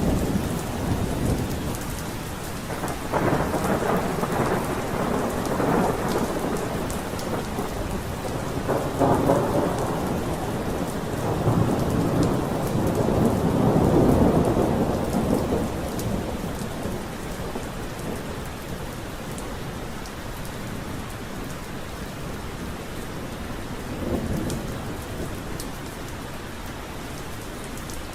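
Steady rain with thunder rolling several times over it; the longest and loudest rumble swells up and fades in the middle, and a faint one comes near the end.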